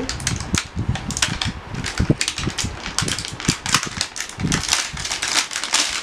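Clear plastic wrapping crinkling and rustling in dense, irregular crackles as it is handled and pulled off a new electric water heater.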